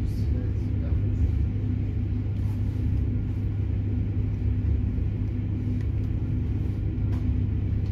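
Bombardier Régio2N electric multiple unit running along the track, heard from inside the passenger coach: a steady low rumble with a faint steady hum.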